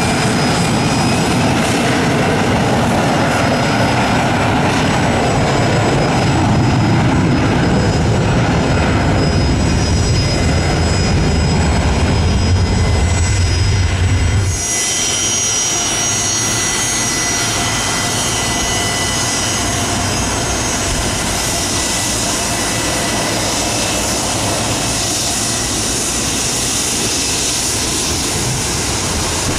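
Gulfstream business jet's twin rear-mounted jet engines running at taxi, a steady rumble under a high whine. About halfway through the sound changes abruptly to less rumble and a sharper whine of several high steady tones.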